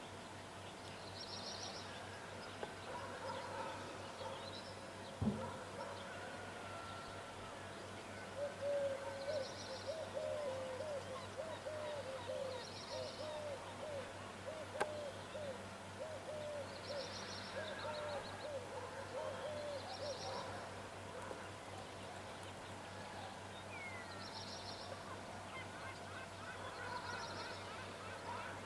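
Birds calling: one bird gives a run of about a dozen short calls, about one a second, while a smaller bird chirps high at intervals over a faint steady hum. Two sharp clicks stand out, one early and one halfway through.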